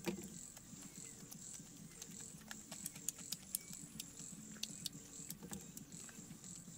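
Light irregular clicks and crackles of hands picking apart grilled fish, with a single louder knock right at the start, over a steady high chirring insect chorus.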